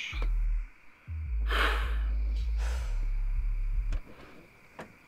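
A man's breathy sigh about one and a half seconds in, over a deep low rumble that stops about four seconds in; a couple of faint taps follow.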